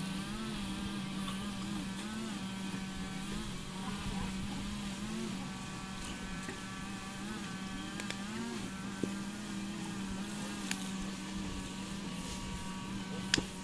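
A steady engine-like hum that wavers slightly in pitch every second or so, with a few sharp clicks, the loudest near the end.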